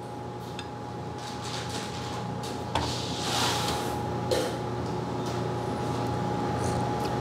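Glass coffee server being handled over a steady room hum. About three seconds in there is a light clink and a short hiss of coffee pouring into a small cup, then a small knock as the server is set down on the scale.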